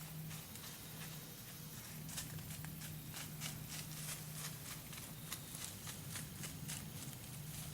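Deer walking, a run of sharp hoof steps at about three or four a second, starting about two seconds in, over a steady low hum.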